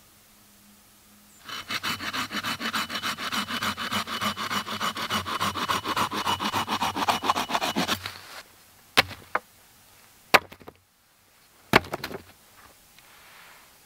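Folding hand saw cutting through a green wooden stick in quick, even back-and-forth strokes. The sawing starts about a second and a half in and stops about eight seconds in, followed by a few sharp knocks.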